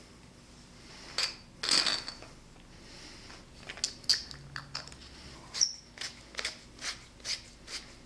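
Mag-Lite aluminium flashlight being assembled by hand: a click and a longer scrape as the battery adapter goes into the barrel, then a run of short scraping clicks, about two a second, as the tail cap is twisted onto its threads against the spring.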